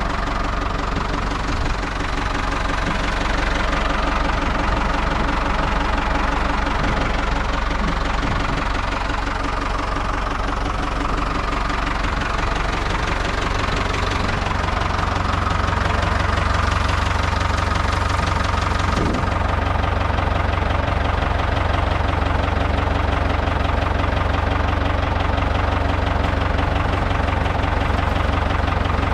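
Ford 5000 tractor engine running steadily. About halfway through, its low rumble becomes stronger.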